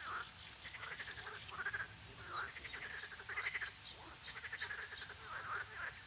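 Frogs croaking: a series of quick, rattling calls one after another, over a faint outdoor hiss.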